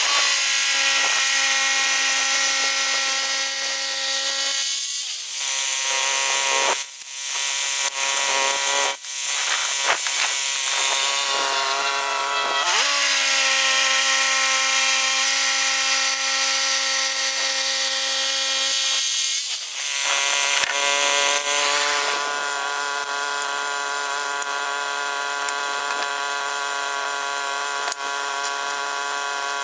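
Gas-engine portable bandsaw mill (Woodland Mills HM122) sawing a large pine log. The engine and band blade give a steady pitched drone that dips and shifts several times over the first twenty seconds or so, then holds steady.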